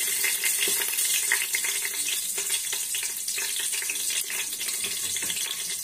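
Cumin seeds and bay leaves sizzling in hot oil in a pressure cooker: a steady hiss with fine crackles.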